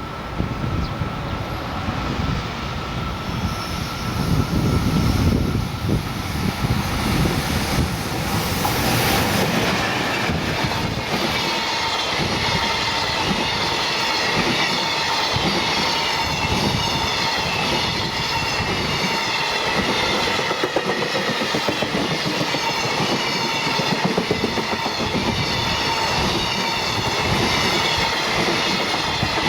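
Electric-locomotive-hauled freight train passing. Its wagons' wheels clatter over the rail joints in a steady, repeating rhythm that settles in about ten seconds in, after a lower rumble at the start.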